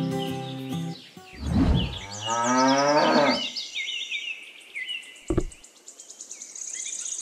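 A cow mooing once, one long call of about two seconds starting a little after a second in, with birds chirping over it.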